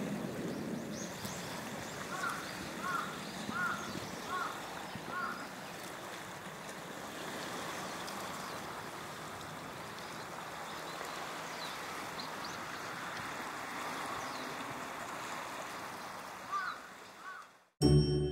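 Steady outdoor background noise with a bird calling: five short calls in quick succession about two seconds in, and two more near the end. Music starts at the very end.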